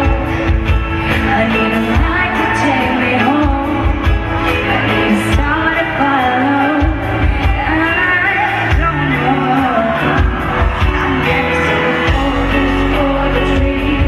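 A woman singing a pop ballad live into a microphone over amplified backing music.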